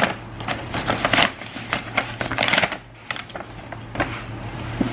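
Brown kraft-paper shopping bag being opened by hand, the stiff paper crinkling and rustling in irregular bursts, over the steady low hum of a running extractor fan.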